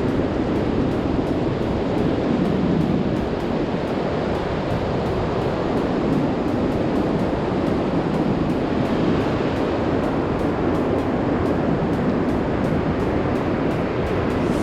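Ocean surf washing onto a beach with wind on the microphone: a steady rushing noise.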